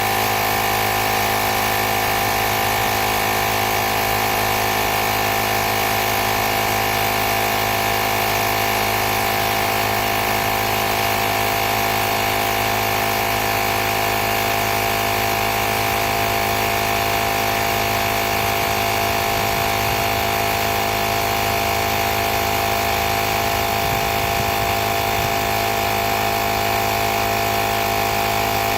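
Small electric air compressor of a portable jump starter pack running steadily, a constant motor-and-pump buzz with no change in pitch or level.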